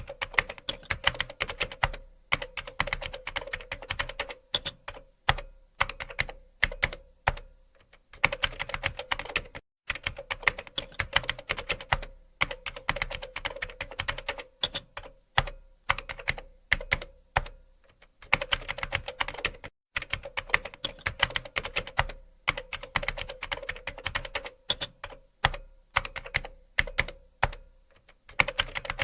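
Typing on a computer keyboard: rapid key clicks in runs of a second or two, broken by short pauses.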